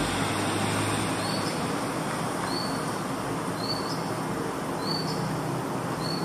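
Soft 6B graphite pencil scratching steadily on paper in small shading strokes. A faint high chirp recurs about once a second.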